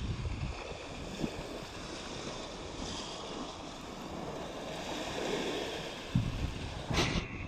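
Sea surf washing over shoreline rocks, with wind buffeting the microphone in gusts. A brief sharp click near the end.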